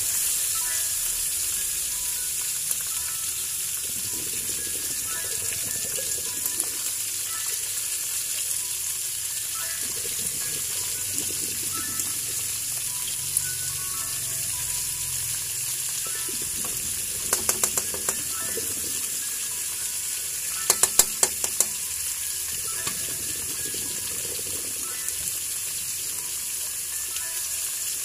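Whole tulingan (frigate tuna) with onion and ginger sizzling steadily in hot oil in a frying pan. There are two short runs of sharp clicks, about two-thirds of the way through.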